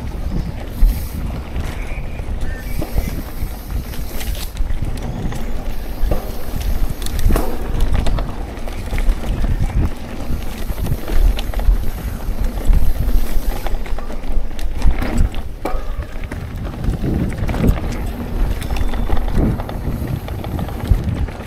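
Mountain bike riding fast down a dirt trail: wind buffeting the microphone, and the tyres and frame rattling and knocking over bumps and roots.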